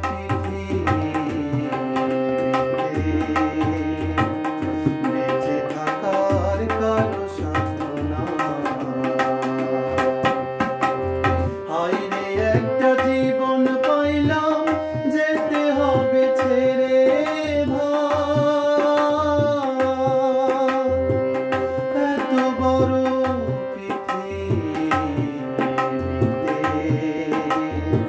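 Tabla pair played in a fast, continuous rhythm over a harmonium's sustained reedy melody.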